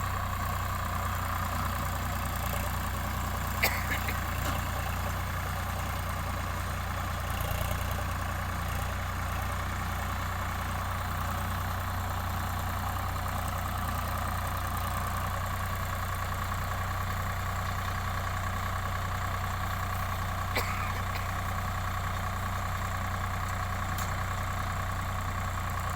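Solis 5015 tractor's diesel engine running steadily at a constant speed, with a steady high whine above it and a couple of sharp clicks, about four seconds in and again near twenty-one seconds.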